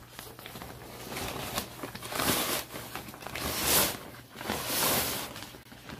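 Fabric carry bag rustling and swishing as it is pulled down over a folded camping cot. There are three louder swishes, about two, three and a half and five seconds in.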